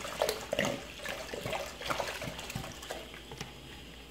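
Red wine glugging out of an upturned glass bottle into a large aluminium pot, splashing in irregular gulps that thin out near the end as the bottle empties.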